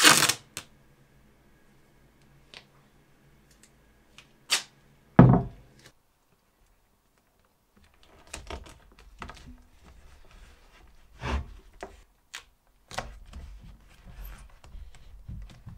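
Gaffer tape ripped off the roll, then a few knocks and one heavy thump on the wooden workbench about five seconds in. Later, hands rub and press the tape down onto a wooden skateboard deck, with scattered small taps.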